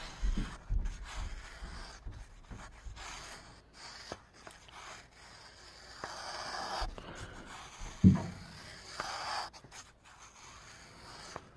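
Freshly sharpened Spyderco PM2 Wharncliffe blade slicing thin slivers off the edge of a sheet of paper in a sharpness test: soft hissing cuts and light paper rustling, with small clicks and a short breath-like sound about eight seconds in.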